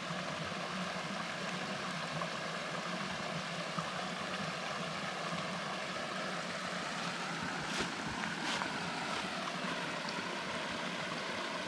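Waterfall rushing: a steady, even roar of falling water.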